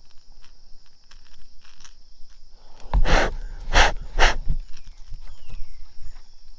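Steady high-pitched insect drone, with faint scattered ticks. About halfway through come three short, loud, rushing noises, a fraction of a second apart.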